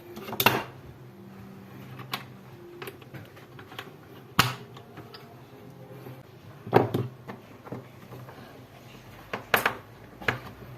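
Scattered sharp clicks and knocks of small hard parts being handled, about eight in all at irregular intervals. The loudest come about half a second in, around four and a half seconds, and near seven seconds. A faint steady low hum lies underneath.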